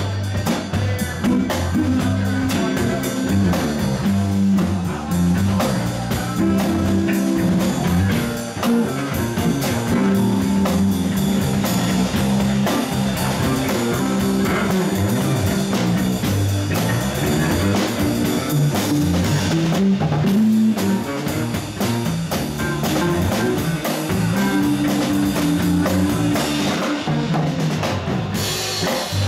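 A live band playing electric guitar and drum kit, with a steady drumbeat.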